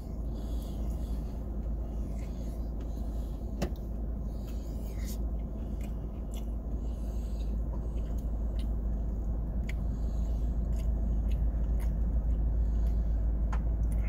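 Low steady rumble of an idling car heard inside the cabin, growing slightly louder toward the end, with scattered small clicks and rustles over it.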